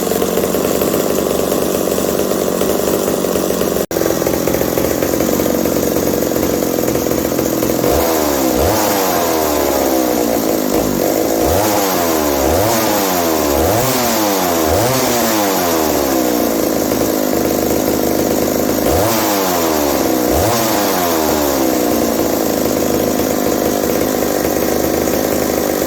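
McCulloch 740 two-stroke chainsaw engine running steadily, then blipped up and down in repeated revs from about 8 seconds in to about 21 seconds, before settling back to a steady run. The engine revs up eagerly but tends to lean out and falter as it comes back down, which the owner puts down to the carburetor metering lever not letting fuel back in fast enough.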